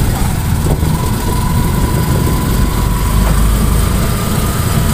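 Motorcycle engine of a motorized tricycle running under way, heard from inside the sidecar as a steady low rumble.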